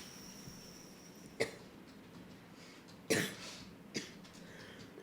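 A person coughing: three short, sharp coughs about one and a half, three and four seconds in, the middle one the loudest.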